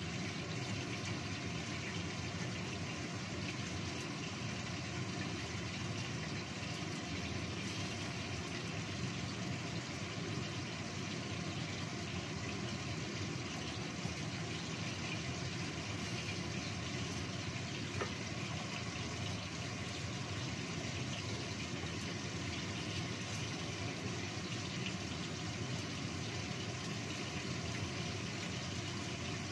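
Steady hiss and rumble of a gas stove burner under a lidded wok, with the fish in red chili sauce simmering under the lid.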